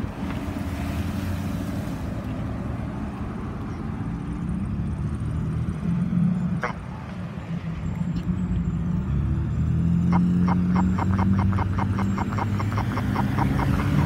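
Road traffic running past a crosswalk. About six and a half seconds in there is a single sharp click, and from about ten seconds in a Campbell accessible pedestrian signal pushbutton's speaker gives a rapid run of ticks, about seven a second, lasting about three seconds.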